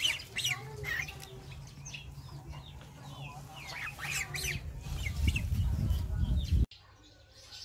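Backyard poultry calling, a steady stream of short clucks and chirps. A low rumble builds near the end and cuts off abruptly.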